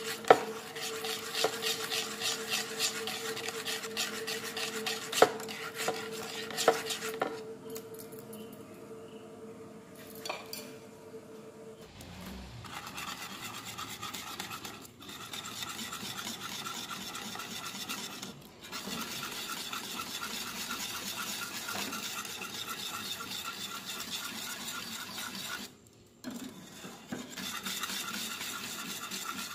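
Metal wire whisk beating a thick dulce de leche mixture in a metal pot: a fast, even swishing and scraping of the wires against the pot, with a few sharp clinks in the first seven seconds.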